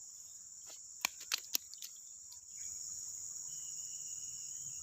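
Steady high-pitched chorus of crickets or similar insects, which swells louder about two and a half seconds in. A few sharp clicks come about a second in.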